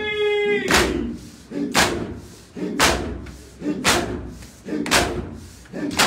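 Crowd of mourners doing two-handed chest-beating (do-dasti matam), the massed hand slaps on chests landing together in a steady beat about once a second. A sung noha note is held at the start and ends under a second in.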